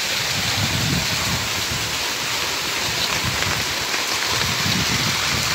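Heavy rain pouring down on the ground and puddles, a steady dense hiss with an uneven low rumble underneath.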